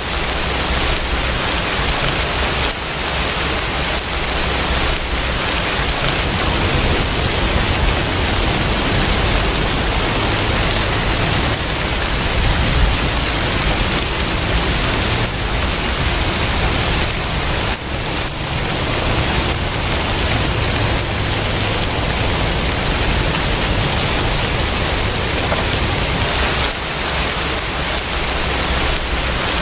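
Steady heavy rain, an even hiss, with a low rumble underneath that grows stronger about six seconds in and eases off near the end.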